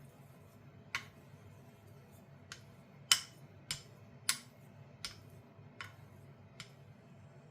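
A straight razor being honed on a stone: a series of sharp clicks, about eight, spaced roughly half a second to a second apart, as the blade meets the hone stroke after stroke.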